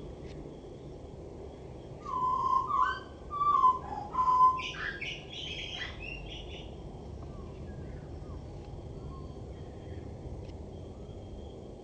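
Male Eurasian blackbird singing one song phrase about two seconds in: a few low, fluty warbling notes, then a higher, squeaky twitter to end it.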